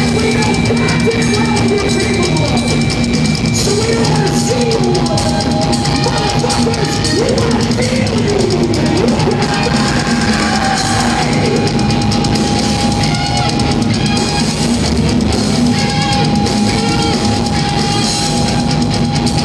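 Thrash metal band playing live, loud and without a break: fast drum kit and distorted electric guitars.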